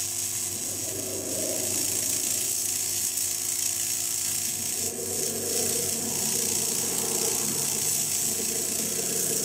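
Harsh electronic noise from a circuit-bent VHS video recorder: a steady high hiss with a dense, grainy crackle and rattle beneath it.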